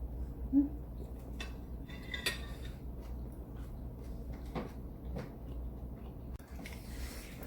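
Cutlery clinking against a plate now and then while eating, a few light separate clicks, over a low steady hum.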